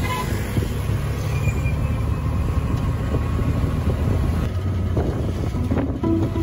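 Piaggio three-wheeler's engine running as it drives along in traffic, heard from inside its open-sided cabin as a steady low rumble with road noise. Guitar music comes in near the end.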